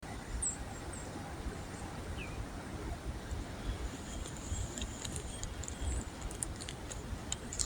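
Wind buffeting the microphone in an uneven low rumble, with a few faint high bird chirps and a cluster of light clicks near the end.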